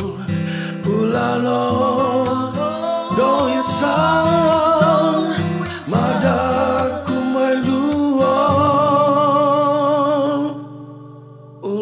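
Male vocalist singing over instrumental backing music. A long held note with vibrato runs through the later part, then the sound thins and drops in level for about a second before the music returns near the end.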